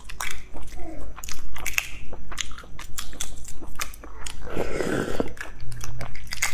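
Shells of boiled eggs being cracked and peeled off by hand: a run of sharp crackles and clicks. Close-up sounds of biting and chewing come about four and a half seconds in.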